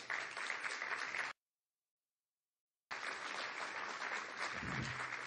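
Audience applauding, an even wash of clapping. About a second in the sound cuts out completely for about a second and a half, then the applause resumes.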